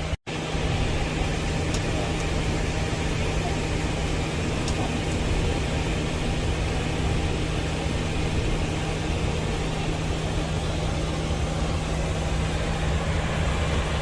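Steady cockpit noise of a Boeing 737 MAX 8 on the ground: a constant rush of airflow over a low rumble with a steady hum. The sound cuts out completely for a moment just after the start.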